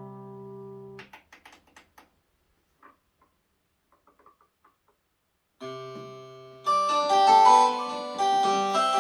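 Yamaha QS300 synthesizer playing its stock preset sounds: a held chord cuts off about a second in, followed by a quick run of short clicks and a near-quiet gap. About five and a half seconds in a new chord starts, and from about seven seconds a louder, busier passage of many notes plays.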